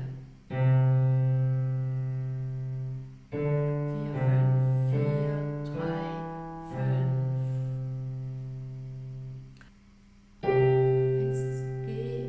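Digital piano playing slow, held notes one after another, each struck and then fading as it sustains, with a short break about ten seconds in.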